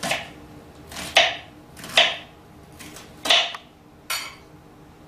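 Knife cutting through an onion onto a plastic cutting board: about five sharp chops, roughly a second apart, with quiet between them.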